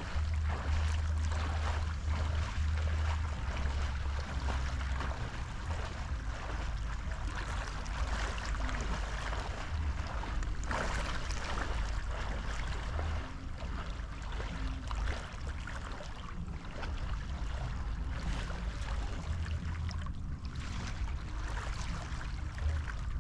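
Wind buffeting the microphone in an uneven low rumble, over a steady wash of small waves lapping at the water's edge.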